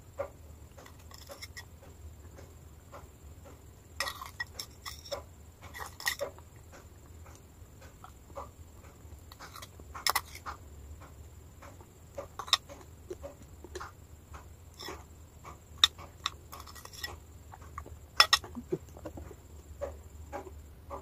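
A metal spoon clinking and scraping against a glass bowl of wet chalk paste, with close, wet mouth sounds of the paste being eaten. The sounds are irregular, sharp and separate.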